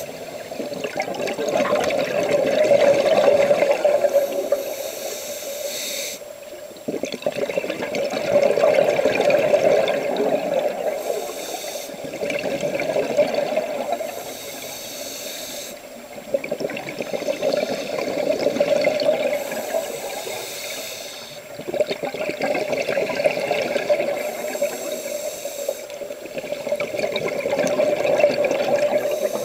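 Scuba diver breathing through a regulator, heard underwater through a camera housing. Exhaled bubbles gurgle in regular surges every several seconds, with a short higher hiss between them.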